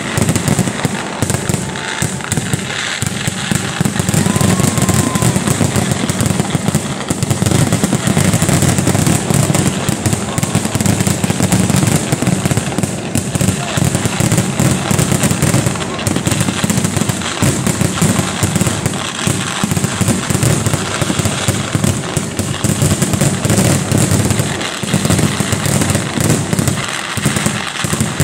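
A dense, unbroken fireworks barrage: a rapid stream of bangs and crackling from aerial shells bursting, with ground-level bursts among them, as the loud finale of the display.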